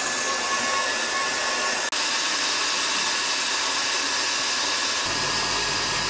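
Steady hiss of compressed-air assist blowing from the nozzle of a Comgrow Z1 Pro 20 W diode laser head as it cuts hardwood plywood. The hiss drops out for an instant about two seconds in, and a low hum joins it about five seconds in.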